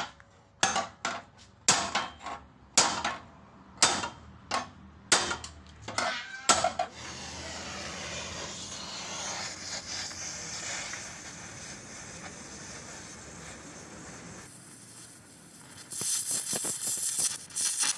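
About a dozen ringing hammer blows on steel car-body metal over the first seven seconds, then the steady hiss and crackle of a stick (arc) welder, louder near the end as the electrode burns against the steel.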